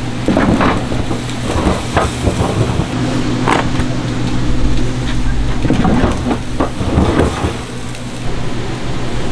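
Metal tin loaf pans knocking and scraping as they are slid into place on the floor of a bakery deck oven, eight or nine irregular clanks and scrapes, over a steady low hum.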